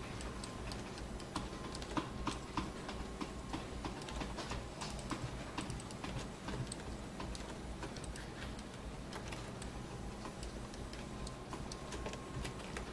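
Irregular clicking of a computer mouse and keyboard, over a steady low hum.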